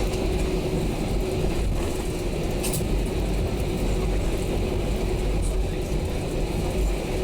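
Airbus A320 cabin noise: a steady low rumble of the engines and air conditioning, with a constant hum and a faint tick or two.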